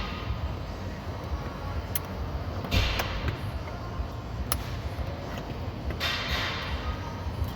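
Hands handling car interior trim and tools: a few sharp clicks and two short rustling, scraping sounds over a steady low rumble.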